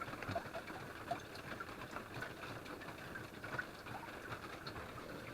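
Water dripping inside a rock cave: many small, irregular drops over a faint steady wash of running water.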